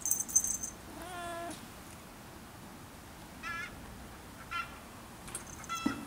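A cat meows once, a half-second call about a second in, and three short high-pitched chirps follow later. A brief high rattle at the very start is the loudest sound.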